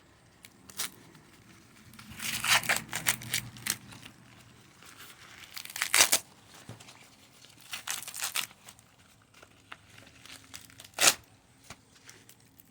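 Corn husks being torn and peeled back from an ear of sweet corn, in a few rustling bursts with two short, sharp snaps, one midway and one near the end.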